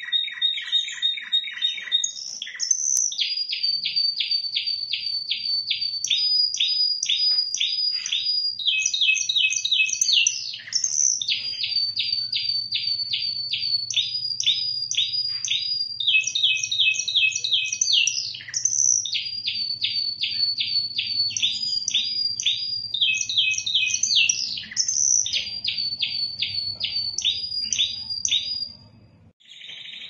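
Spanish timbrado canary singing: a long song of fast repeated notes, each phrase held for a second or two before switching to another. The song breaks off briefly near the end.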